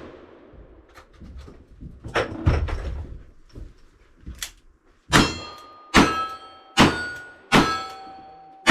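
Gunshots at steel targets: a few scattered shots in the first half, then five shots in steady succession about 0.8 s apart. Each of the five is followed by the ringing of the struck steel plate.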